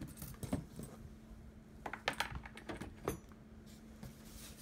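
Light clicks, taps and rattles of a heat press's power cord and parts being handled and set down among polystyrene foam packing, with a cluster of sharper taps about two seconds in and another about three seconds in.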